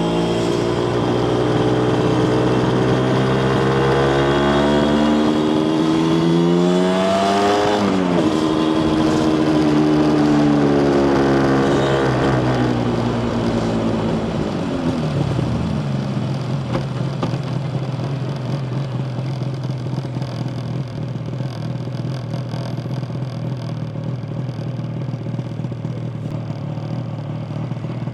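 Yamaha TZR250 1KT's two-stroke parallel-twin engine pulling up in revs, with a sharp drop in pitch at a gear change about eight seconds in. It revs up again, then slows down and settles to a steady idle for the second half.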